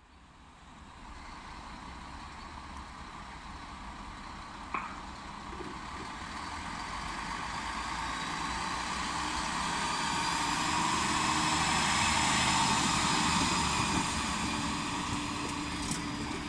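Yellow two-car diesel railcar running past a station platform: engine drone and rail noise growing steadily louder, loudest about two-thirds of the way through, then easing slightly. A sharp click about five seconds in.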